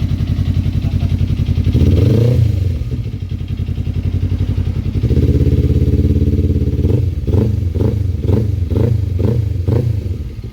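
Kawasaki Ninja 250 parallel-twin engine through an Astina big-volume aftermarket muffler, idling and being revved. There is one short blip about two seconds in, a held rev around the middle, then about six quick blips in a row before it settles back to idle.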